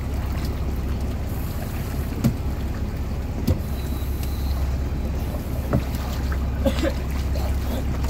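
Dive boat engine idling with a steady low rumble, with a few short knocks as a scuba diver climbs the boarding ladder aboard with a tank on his back.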